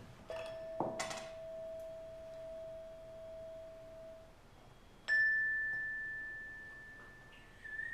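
Homemade bell instrument, a metal pipe coupled to strings, struck for two pure ringing tones. A lower tone rings for about four seconds and stops. About five seconds in a higher, brighter tone is struck sharply and dies away.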